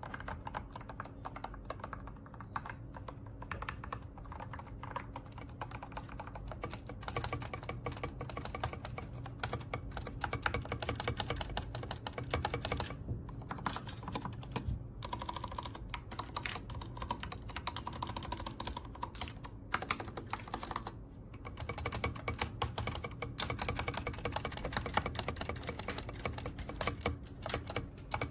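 Mechanical keyboard fitted with Gateron Milky Yellow Pro linear switches being typed on quickly, a dense run of keystroke clacks with a few short pauses.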